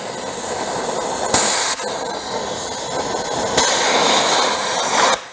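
Cutting torch hissing steadily as it burns through a rusted bolt, with two louder rushing blasts, a short one about a second in and a longer one about halfway through. It cuts off just before the end.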